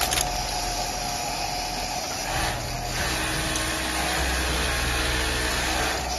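ISAMU sewing machine running with a steady motor hum, which changes briefly about halfway through, with a click near the start and another near the end.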